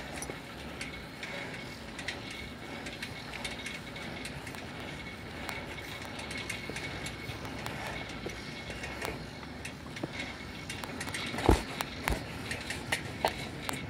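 Bicycle rolling along an asphalt road: irregular ticking and rattling from the chain and freewheel over steady rolling noise, with one louder knock about eleven and a half seconds in.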